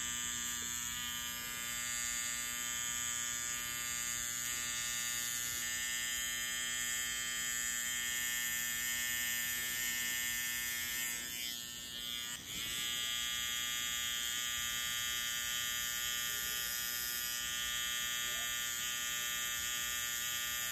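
Electric hair clippers running steadily against the skin while lining up a hairline, a constant motor buzz. The tone wavers and dips briefly about twelve seconds in, then settles again.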